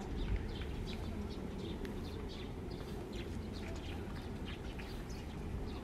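Small birds chirping repeatedly in the park trees, over a steady low rumble.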